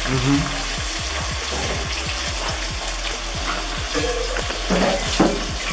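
Potatoes frying in hot oil in a pan: a steady sizzle full of quick crackles and spits.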